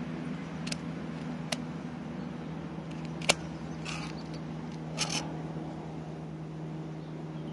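A few sharp metallic clicks and taps, the loudest about three seconds in, as a pistol-grip hook remover works a single hook out of a fish's mouth, over a steady low hum.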